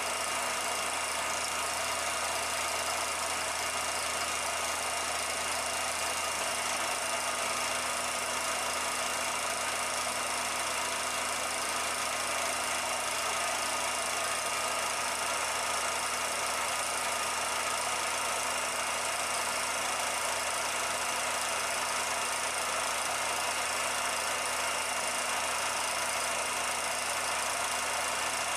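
A 16mm film projector running: a steady mechanical whir with a constant hum of several fixed tones and a light clatter, unchanging throughout.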